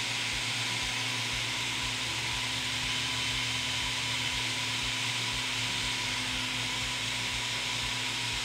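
Small brushless motor spinning the impeller of a portable vacuum stencil holder, a steady rush of air with a faint whine, pulling suction to hold a solder-paste stencil down.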